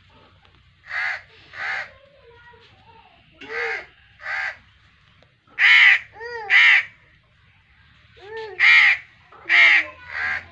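A crow cawing repeatedly, about ten harsh caws that come mostly in pairs every two to three seconds, the loudest about halfway through.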